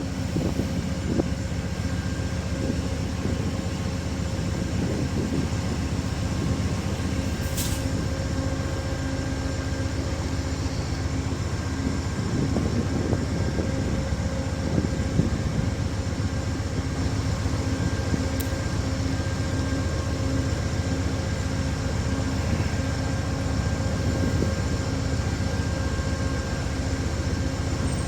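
Amtrak passenger train's diesel locomotive running at the ordered stop, a steady low engine drone with a constant hum over it.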